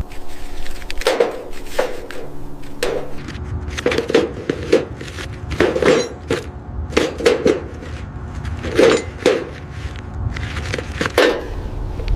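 A series of sharp knocks and clacks of hard objects, irregularly spaced at roughly one a second, each with a brief ring.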